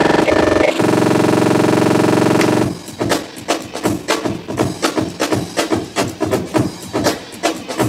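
Breakbeat loop playing through a Make Noise Morphogene granular sampler while it is time-stretched: for the first two and a half seconds or so the grains smear into a sustained pitched buzz, then the break's drum hits come through as a steady, choppy rhythm.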